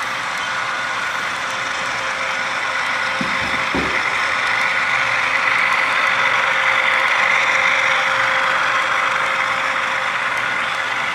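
HO scale model train running on the layout track: a steady rolling noise that grows louder toward the middle and eases off near the end as it passes.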